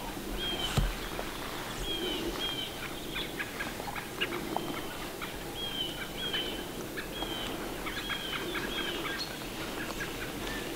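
A bird calling in a repeated series of short, high chirps, each dropping in pitch at the end and spaced roughly a second apart, over scattered faint ticks and steady outdoor background noise.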